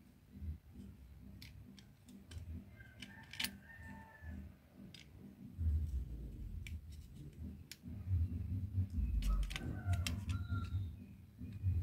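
Utility knife blade scraping and nicking the bark of a bougainvillea cutting: scattered faint small clicks and scratches over a low, uneven rumble that grows louder in the second half.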